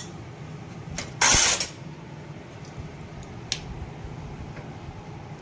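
Hands setting vegetable and cheese toppings onto a pizza base on a steel tray: a few light clicks and taps, and about a second in one loud noise lasting about half a second.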